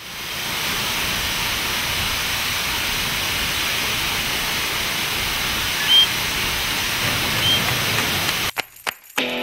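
A steady rushing hiss that fades in at the start, with two short high chirps about six and seven and a half seconds in. Guitar music comes in near the end.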